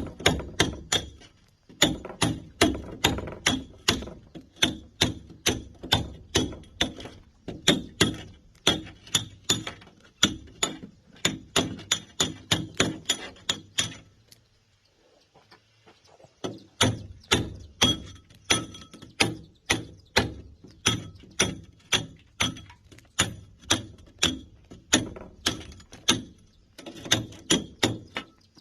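Hand sledgehammer striking a steel chisel in quick, steady blows, about three a second, each with a metallic ring: concrete being broken by hand. The blows stop for a couple of seconds around halfway, then resume, with another short pause near the end.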